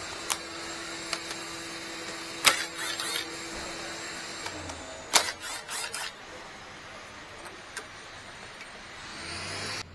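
Hard knocks and rattles of tools and parts being handled during radiator removal. There is a loud knock about two and a half seconds in, followed by a short rattle, then another cluster of knocks around five seconds in, with a few light ticks between.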